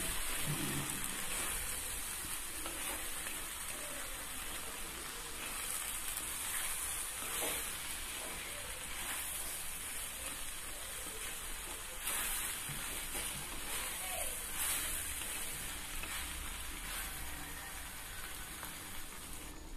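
Chopped vegetables and spice powders sizzling in oil in a clay kadai, with a spatula stirring and scraping them around the pot. This is the frying stage, in which the spices cook through before water is added.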